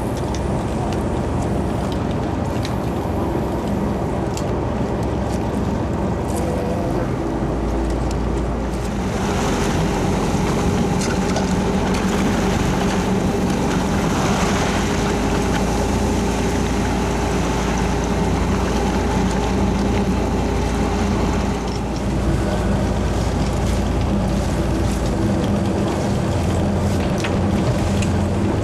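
Fishing boat's engine running steadily, with wind and water noise; a heavier low rumble comes in about seven seconds in and eases off near the end.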